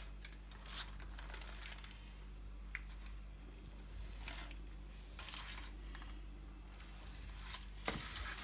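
Baking parchment paper rustling and crinkling in a few short bursts as pastry dough sheets are laid out and smoothed on it, the loudest rustle near the end, over a low steady hum.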